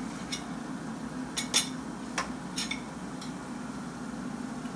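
Utensils clinking against a small plate and a cooking pot as soup is spooned out for tasting: about six light clinks and taps in the first three seconds, over a steady low hum.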